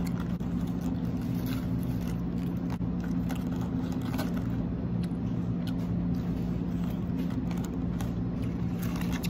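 A steady low machine hum from background equipment, with a few faint clicks and crackles of hands handling crisp romaine lettuce leaves in a foam takeout container.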